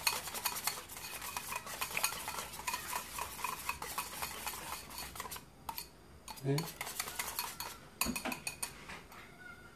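Wire whisk beating rapidly against a ceramic bowl, whisking a flour-and-water slurry smooth to take out the lumps. The fast clicking stops about five seconds in, and a few more taps follow near the end.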